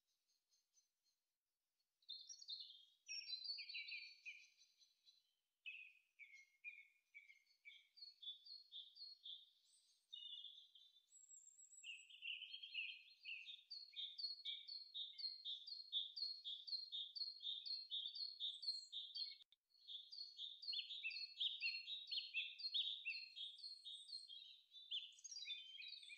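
Songbirds singing: quick, high chirping notes repeated in long runs, starting about two seconds in, with a brief break about three-quarters of the way through.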